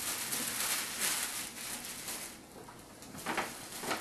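Gift wrap and tissue paper rustling and crinkling as a present is unwrapped: a dense crackle for about the first two seconds, then a few short crinkles near the end.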